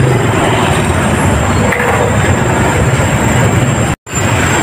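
Steady road traffic noise, with a low hum under it. It drops out to silence for an instant about four seconds in.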